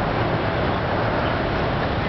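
Steady city road-traffic noise, an even rumble and hiss of vehicles with no single pass standing out.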